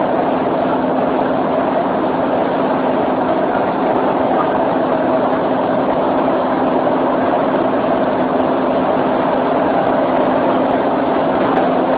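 Running noise of a moving electric commuter train heard from inside the carriage: a steady rumble of wheels on the rails under a constant low hum.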